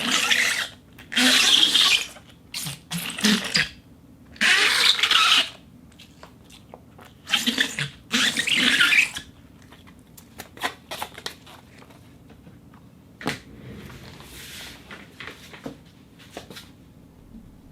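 A rubber balloon rubbed against a rosin plate, making about six loud rasping, squeaky friction strokes of a second or so each. After about nine seconds only fainter scattered squeaks and ticks remain.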